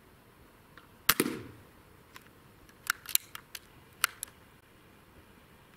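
A sub-12 ft/lb PCP air rifle fires once about a second in, a single sharp crack with a short dull thud trailing after it. A run of smaller sharp clicks and taps follows a couple of seconds later.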